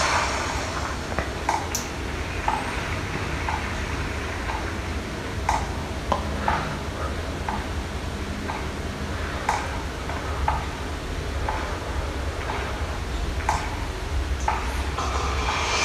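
Sparse ticking beat from the act's soundtrack, one short tick about every second with a sharper click about every four seconds, over a low steady hum and hiss.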